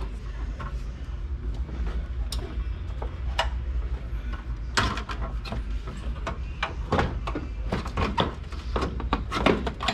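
Plastic trim clips and the plastic cover over the radiator support clicking, knocking and rattling as they are pried loose and lifted by hand: scattered sharp clicks that crowd together in the last few seconds, over a steady low hum.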